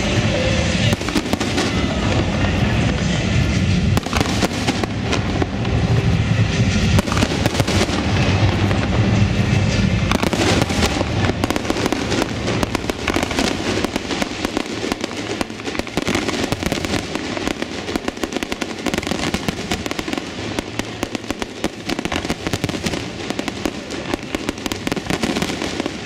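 Aerial firework shells bursting in a dense barrage, many bangs overlapping with constant crackling. The deep booms are heaviest for the first ten seconds or so, then thin out while the crackling goes on.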